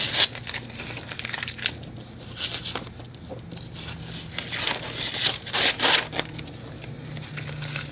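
Tape being peeled off the border of a sheet of watercolour paper: a series of irregular rips and crinkles as the strip comes away and is handled, the loudest about five and six seconds in.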